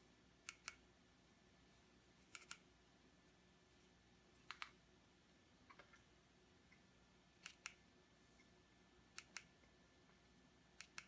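Amazon Fire TV remote buttons being pressed, each press a quick double click, about every two seconds, six times.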